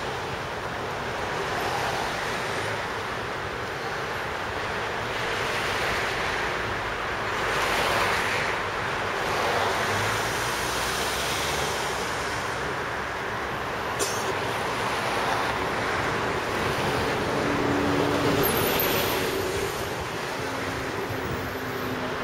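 Outdoor road traffic noise with wind on the microphone, a steady rush that swells and fades as vehicles pass. A single sharp click comes about two-thirds of the way through.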